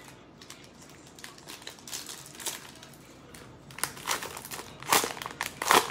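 Plastic cellophane wrapper of a Panini Mosaic cello pack of trading cards being crinkled and torn open by gloved hands. The crinkling starts about two seconds in and grows louder, with the loudest crackles near the end.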